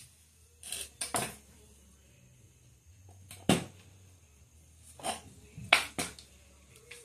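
About six short, sharp clunks and clicks from an old McCulloch Pro Mac 700 chainsaw being handled and readied on a concrete floor, the loudest a little past the middle and near the end; the engine is not running.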